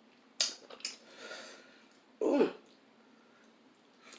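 A congested woman clearing her throat, with a short sharp breath about half a second in and a louder throat-clear a little after two seconds.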